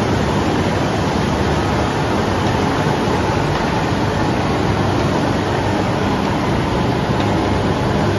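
CTC tea machinery running: CTC roller machines, leaf conveyors and their electric drive motors giving a steady, even machine noise with a low hum underneath.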